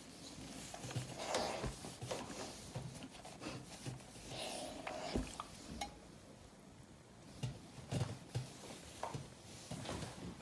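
Faint ironing sounds: a steam iron handled on an ironing board, with fabric rustling, the iron sliding and scattered light knocks and clicks.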